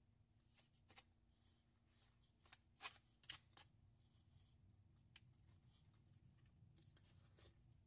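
Plastic spoon and fork scraping and tapping against a styrofoam food container, a scatter of small clicks and scrapes, the loudest two close together about three seconds in.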